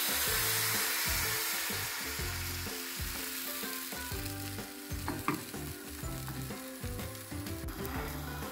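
Thin crepe batter sizzling in a hot frying pan just after being poured. The sizzle is loudest at first and slowly fades, with a few light clicks partway through.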